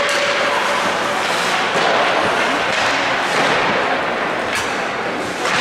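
Ice hockey play in a rink: a steady hiss of skates on the ice and arena noise, broken by a few sharp knocks of sticks, puck or boards.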